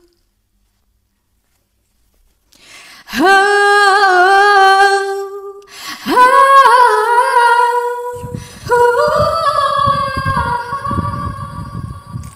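Soundtrack ballad: a woman's voice humming long, wavering held notes without words, beginning after a couple of seconds of silence. A low accompaniment joins about eight seconds in.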